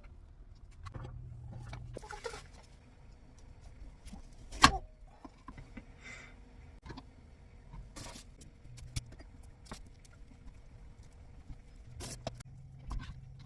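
Kitchen handling sounds while preparing food: scattered light clicks and knocks of utensils and ingredients, with one sharp loud knock a little under five seconds in.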